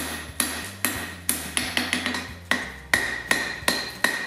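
Hand hammer striking a hot, U-bent round steel bar on an anvil: a steady run of about a dozen blows, two to three a second, each followed by a short metallic ring. The blows knock the long side of the bend down so the two ends of the chain-link blank come into line.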